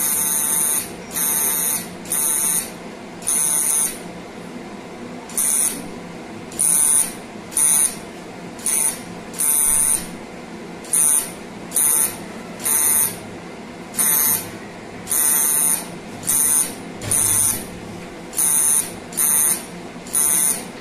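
Thulium fiber laser console sounding its buzzing emission beep in repeated bursts, each lasting a fraction of a second to about a second, at irregular intervals; each burst marks the laser firing while it dusts a kidney stone under water on its fine-dusting setting.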